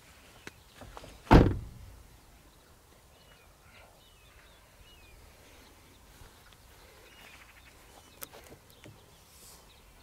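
A single heavy thump about a second in, then quiet open-air background with a few faint bird chirps.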